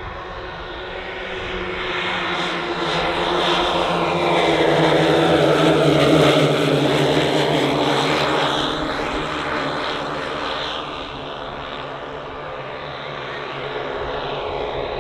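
The twelve 10 cc O.S. model engines of a 1:10 scale Dornier Do X RC flying boat droning together in flight. The sound grows louder to a peak about six seconds in as the model passes close, then fades as it flies away.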